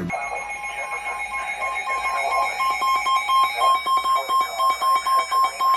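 NOAA Weather Radio receivers sounding their alert alarm for a flood warning: a high electronic tone beeping on and off a couple of times a second, over a steady tone that stops a little past halfway.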